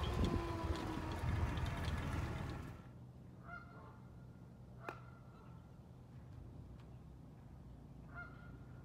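Canada geese honking: a few short, faint honks about three and a half seconds in and again near the end, with a sharp click between them. The first three seconds hold a louder rumbling noise that cuts off abruptly.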